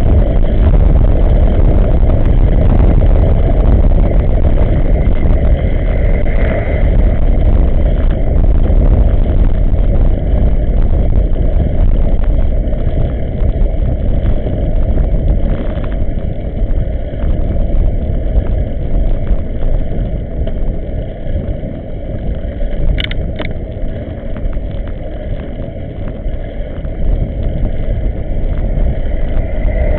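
Wind buffeting the microphone of a bicycle-mounted camera while riding, mixed with tyre and road rumble: a loud, steady low rush. Two sharp clicks come about 23 seconds in.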